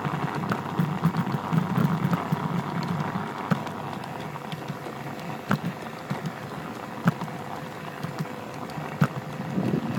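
G-scale model train running along garden-railway track: a steady motor hum and whine with scattered sharp clicks from the wheels on the rails.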